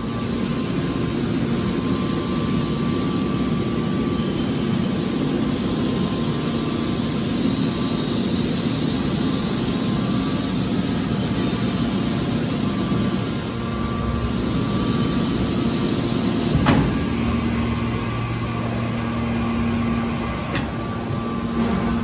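Hydraulic metal baler's power unit running with a steady mechanical hum. A sharp knock about 17 seconds in and a fainter one a few seconds later.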